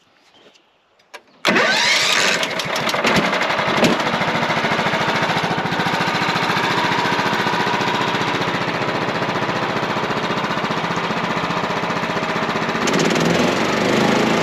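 Wood-Mizer portable sawmill's engine starts about a second and a half in and runs steadily. Near the end the sound thickens and grows louder as the band blade begins cutting into the pine log.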